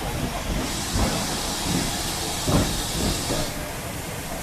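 Steam locomotive letting off steam with a steady hiss for about three seconds, over a low rumble and a few irregular thumps.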